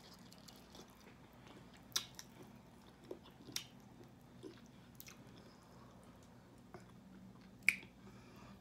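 Close-up eating sounds of a person biting and chewing chicken wings, with a few sharp wet clicks from mouth and fingers, the loudest near the end, over a steady low hum.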